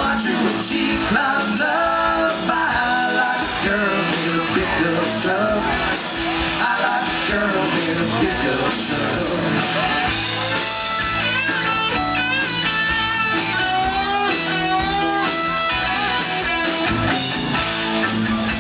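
Country rock band playing live through a PA: drums, bass and electric guitars, with a lead vocal in the first half. About halfway through an electric guitar solo with bent notes takes over.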